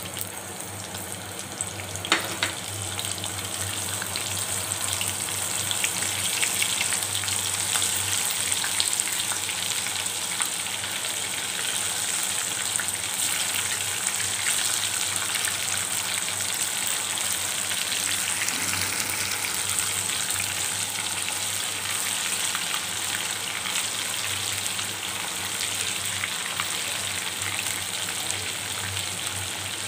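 Chicken-and-potato butterfly pieces deep-frying in hot oil: a steady sizzling and crackling that grows louder over the first several seconds as more pieces go into the pan. One sharp click about two seconds in.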